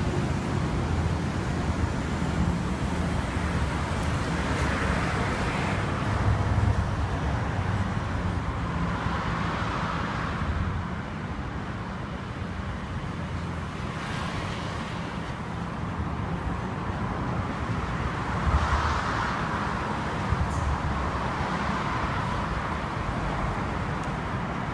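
Road traffic: a steady rumble of cars with several passing by, each one swelling up and fading away over a couple of seconds.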